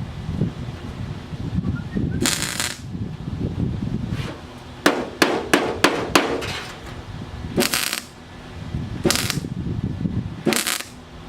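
Welder laying short tack welds on car body sheet metal: four bursts of about half a second each, with a quick run of about six short pops between them, over a low steady rumble.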